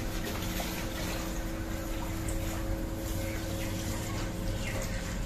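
Tap water running into a steel sink as a plucked chicken is rinsed under the stream, over a steady low hum.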